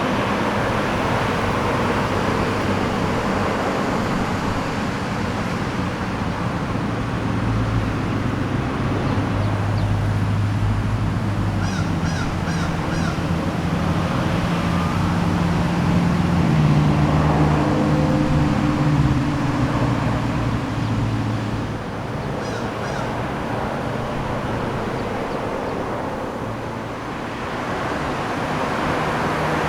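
Road traffic on a country-town street: vehicles passing one after another with a continuous tyre and engine hum, the engine tones shifting as each goes by and loudest a little past the middle. A bird calls in two short runs of quick repeated notes, about twelve and twenty-two seconds in.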